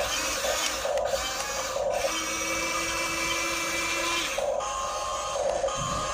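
Huina RC excavator's small electric motors and plastic gearboxes whirring as it works, with a steady whine from about two to four seconds in.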